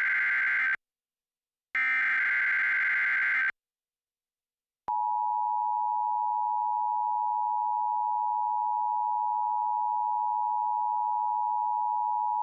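The last two bursts of an Emergency Alert System SAME digital header, harsh buzzing data tones about a second and a half long with a short gap between them, encoding the alert. About five seconds in, the two-tone EAS attention signal starts, a steady dual tone near 900 Hz that announces an emergency message.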